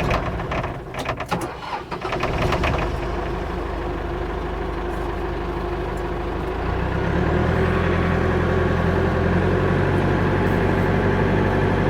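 Tractor engine running while the backhoe is worked, with a few clunks in the first two seconds. About seven seconds in, the engine picks up speed and gets louder, then holds steady.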